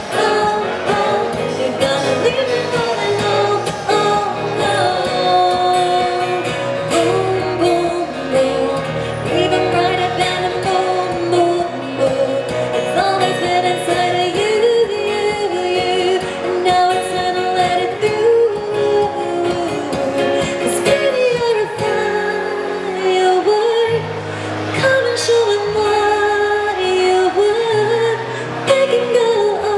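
Live pop singing over an accompaniment with a steady bass line, the voice holding and bending long notes.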